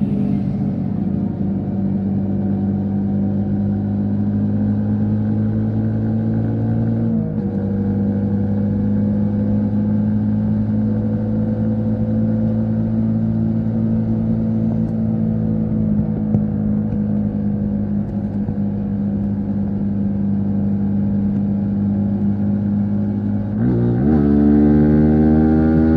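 Yamaha MT-15 V3's single-cylinder engine and exhaust running at steady cruising revs under way. The note dips slightly about seven seconds in. Near the end it drops briefly, then comes back higher and louder as the revs climb.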